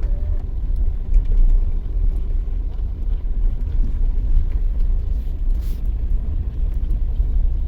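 Steady low rumble and road noise of a car in motion, heard from inside the cabin.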